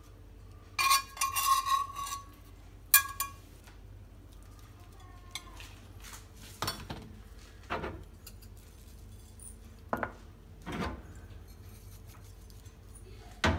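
Kitchenware clatter as fried eggs are slid onto bread on a plate: a run of ringing clinks about a second in and a sharp clink near three seconds, then a few scattered light knocks.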